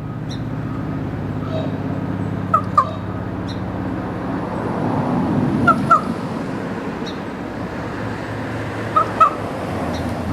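Common raven squawking in short calls that come in quick pairs, three pairs about three seconds apart, with a few fainter calls between them. A steady low background hum runs underneath.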